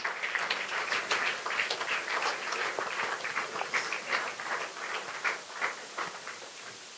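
A congregation clapping: many dense, irregular claps that die away near the end.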